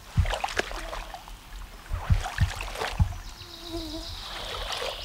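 Water trickling and splashing as a glass jar trap is emptied through a mesh net into a plastic basin, with several light knocks from the handling.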